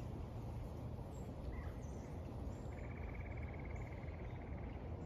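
A small bird's rapid, even trill lasting about two seconds, starting about halfway through, after a single short chirp. Under it runs a steady low rumble of outdoor ambience, with a few faint high chirps.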